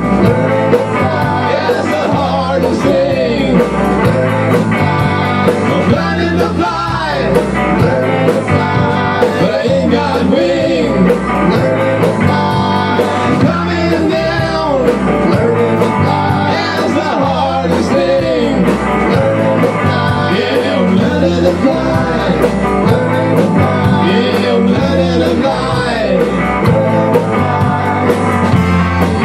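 A live rock band playing a song together: electric guitar, bass guitar and drum kit, loud and steady.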